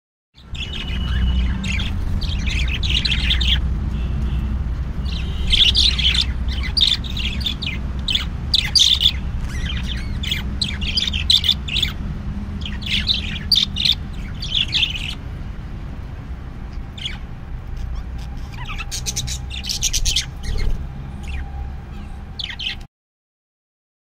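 Caged pet birds chirping and squawking in quick clusters of short, high calls, over a steady low hum. The sound cuts off suddenly near the end.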